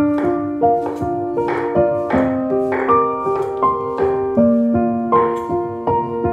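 Background piano music: a gentle melody of single notes and chords struck at an even pace, each note ringing and fading.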